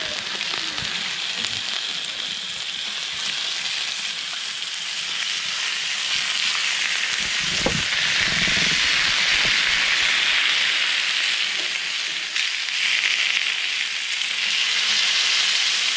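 Raw yellowtail kingfish head and wings sizzling on a hot, salted barbecue grill plate. The steady hiss grows louder from about six seconds in as the fish is pressed down onto the plate, with one brief knock near eight seconds.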